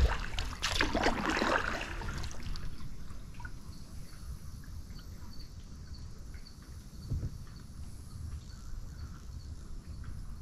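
Kayak paddle strokes splashing through the water for the first couple of seconds. Then a quieter stretch of water trickling and lapping at the hull, with an insect chirping faintly about twice a second.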